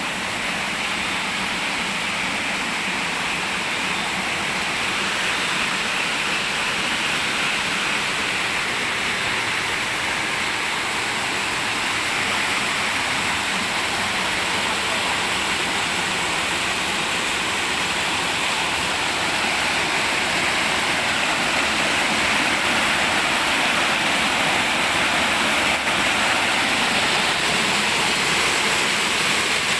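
Stream water rushing and splashing over rocks, a steady hiss that gets a little louder in the second half.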